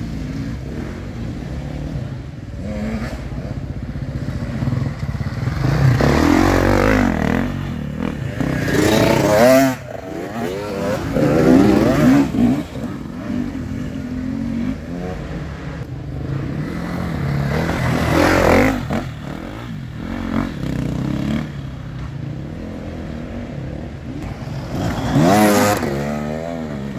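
Enduro dirt bike engines revving hard in repeated bursts of throttle as riders climb a slippery muddy slope, the pitch rising and falling with each burst over a steady engine hum underneath.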